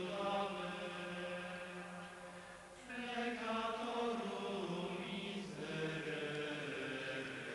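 Liturgical chant: voices singing long held notes, moving to new notes about three seconds in and again about five and a half seconds in.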